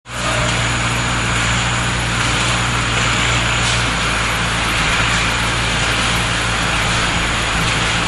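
Tractor engine running steadily while pulling a hay baler through the field, a constant low hum with an even hiss over it.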